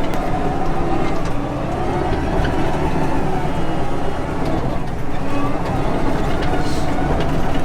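John Deere 450H crawler dozer's diesel engine running steadily as the machine works, its drone dipping slightly in pitch about halfway through.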